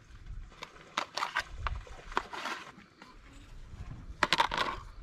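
Knife cutting and scraping against a plastic plate: scattered short clicks and brief scrapes, with a quick cluster of clicks a little after four seconds in.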